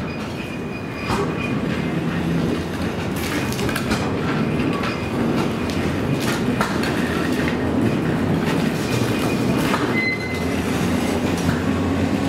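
Baltimore Transit PCC streetcar No. 7407 rolling past on its track: a steady low rumble from the car and its wheels, with scattered clicks as the wheels cross rail joints and a short high wheel squeal about ten seconds in.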